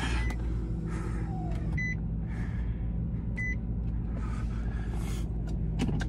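Car engine running steadily while the car sits stuck in deep snow, with two short electronic beeps about a second and a half apart and a soft rushing hiss that comes and goes.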